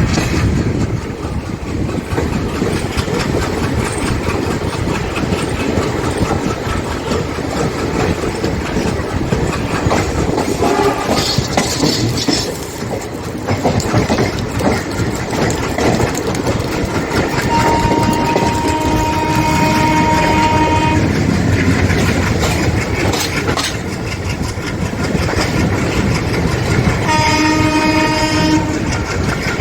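Indian Railways train running steadily along the track, with the ALCO diesel locomotive's horn sounding twice: one long blast of about three seconds a little past halfway, and a shorter blast of about two seconds near the end.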